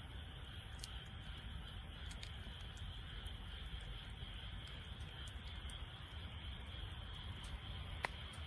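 Wood fire burning in a Snow Peak Takibidai L fire stand, a steady low noise with a few faint crackles and one sharper pop near the end.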